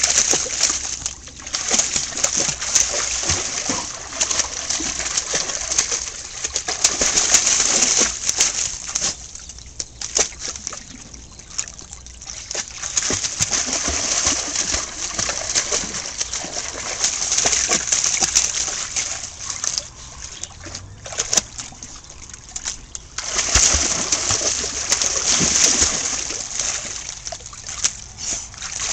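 A dog splashing and wading in a garden pond, the water churning and slapping in bouts a few seconds long with quieter lulls between.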